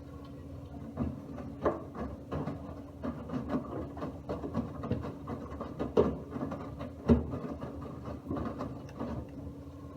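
Miele W1 front-loading washing machine tumbling a load of laundry: irregular soft thumps and knocks as the drum turns for about eight seconds, then stops, over a steady low hum.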